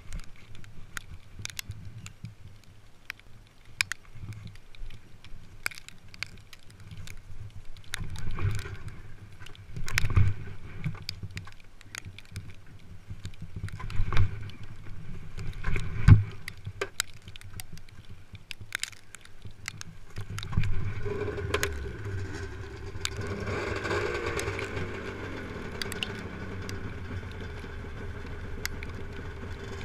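Clicks, rustling and a few dull thumps from handling close to the camera. About two-thirds in, a snowmobile engine starts and runs steadily, its pitch rising and falling briefly soon after.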